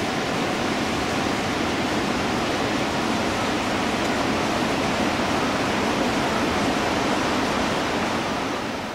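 Steady, even rush of flowing water, fading out near the end.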